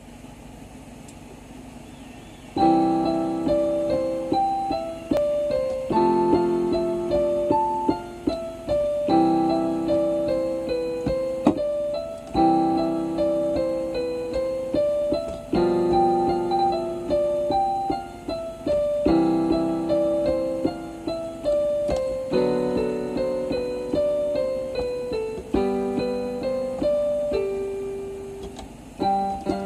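Electronic keyboard played with a piano sound: a slow melody over held chords. It begins about two and a half seconds in, and each phrase opens with a fresh chord about every three seconds.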